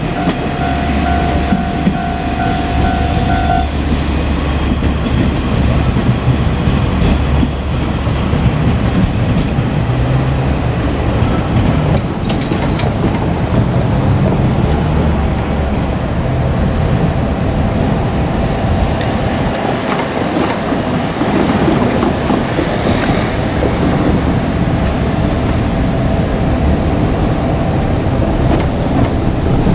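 Two-car KiHa 47 diesel railcar set running on the line, a steady low rumble throughout. A steady tone heard at the start cuts off about three and a half seconds in.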